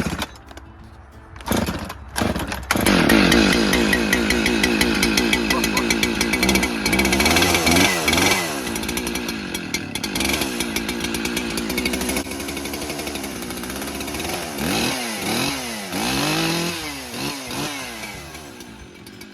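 Gasoline two-stroke chainsaw: a few short bursts, then running continuously from about three seconds in, revving up and down several times and dropping back toward idle near the end.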